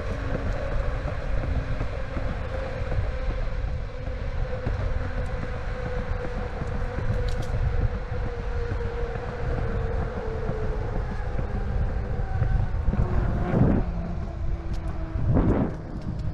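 Electric skateboard rolling along pavement on 120 mm wheels: a steady rumble with wind buffeting the microphone. Over it runs a whine from its direct-drive motors that slowly drops in pitch over about ten seconds. Two short louder swells come near the end.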